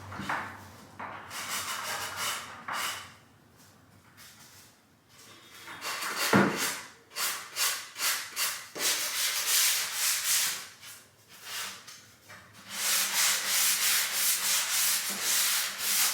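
Hand sanding of wood with a sanding block: runs of quick back-and-forth rasping strokes, with two short pauses and a single knock about six seconds in. It is surface preparation of bare wood before staining.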